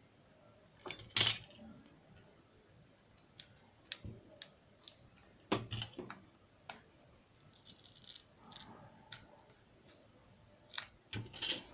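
Scattered small clicks, taps and light clinks of small repair tools and phone parts being handled during a Huawei P8 Lite battery replacement, with the sharpest knocks about a second in, midway and near the end.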